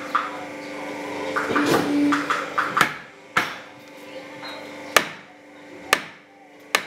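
A hammer striking, about five sharp knocks spaced unevenly through the second half, over a steady hum and some background voices.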